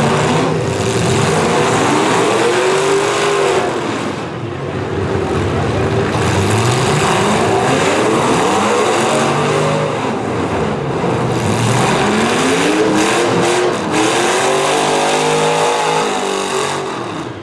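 Several V8 demolition derby cars' engines revving hard, their pitch climbing and falling again and again as the drivers gun and back off the throttle. A few sharp knocks come about thirteen seconds in.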